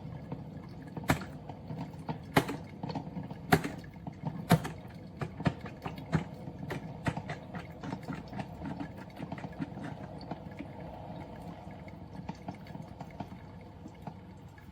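Cuisinart 12-cup filter coffee machine brewing: a steady low running noise with irregular gurgling pops as the heated water spurts through. Several sharp pops in the first few seconds give way to softer crackling.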